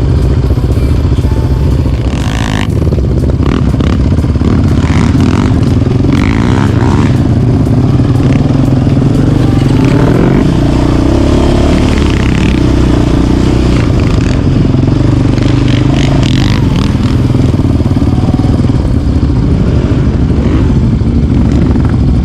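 Quad bike (ATV) engine running while riding, its pitch rising and falling with the throttle, with a few short knocks.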